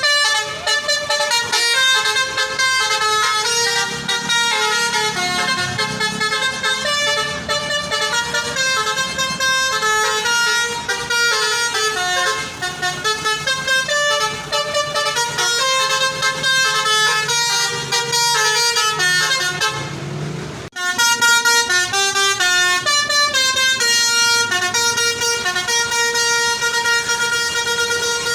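Basuri telolet bus horn playing a quick melody of short, changing notes, with a bus engine running underneath. About 21 seconds in it breaks off abruptly and another horn starts a different tune.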